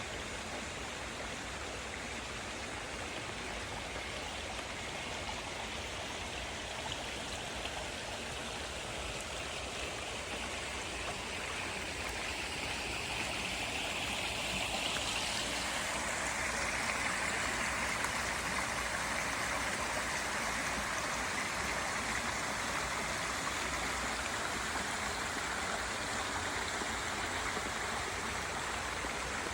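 Creek water running steadily over rocks, getting a little louder about halfway through and then holding.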